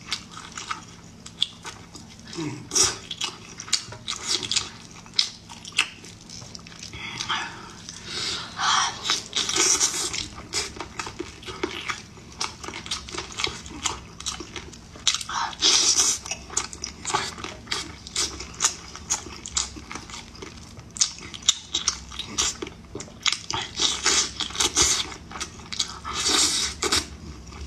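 Close-miked eating of cola-braised chicken wings: chewing and wet mouth sounds, with sticky meat pulled off the bones. Irregular smacks and clicks.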